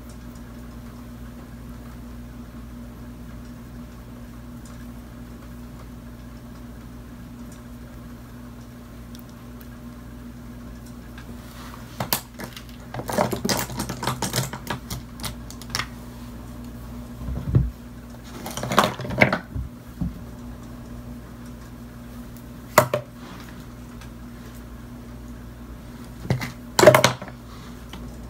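Steady low hum, then from about twelve seconds in, irregular clicks, clacks and rustles of makeup items and brushes being handled and set down close to the microphone. The loudest clack comes near the end.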